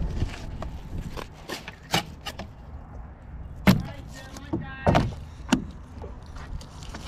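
Fillet knife cutting and scraping through a striped bass on a plastic cutting board, with knocks and thumps as the fish is handled and flipped over; the loudest knock comes a little past halfway, followed by several more and a brief pitched squeak.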